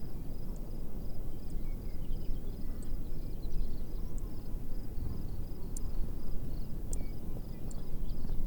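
A wind sound effect: steady gusty rumble, with a rapid series of faint high chirps from small birds or insects above it and a few short, sharper high calls.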